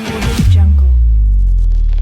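Electronic background music: the drums drop out about half a second in, leaving one long, deep bass note.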